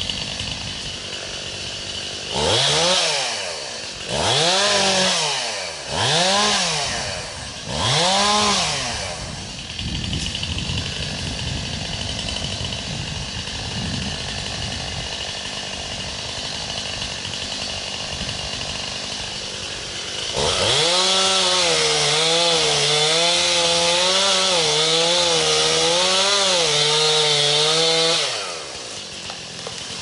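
Chainsaw blipped to high revs four times in quick succession, then running at idle. About twenty seconds in it is held at full throttle for around eight seconds, its pitch wavering under load as it cuts, then drops back to idle near the end.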